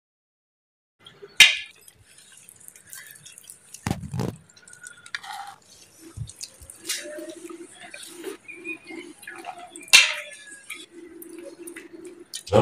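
Metal spoons clinking and scraping on plates while people eat, with a few sharp clinks and one dull thump about four seconds in.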